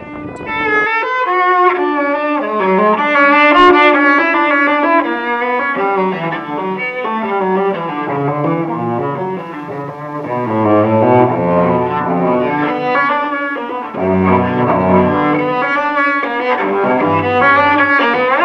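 Background music on bowed strings: a moving melody over lower notes, with deeper bass notes coming in past the middle.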